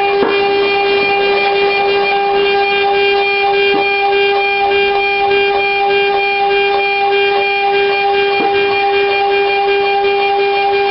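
CNC router spindle running at a steady speed, giving a constant high whine with a few faint ticks.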